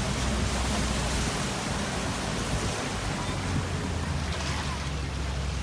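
Safari truck driving along: a steady rushing noise of wind and tyres over the engine's low drone, which fades for a few seconds in the middle.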